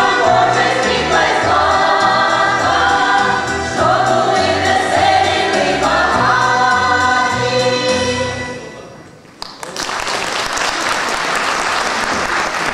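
A women's folk choir sings in several-part harmony, holding long chords; the song fades out about nine seconds in. The audience then breaks into applause.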